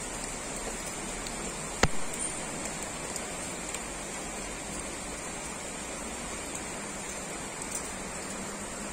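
Heavy typhoon rain falling steadily, an even hiss with no let-up. A single sharp click cuts through a little under two seconds in.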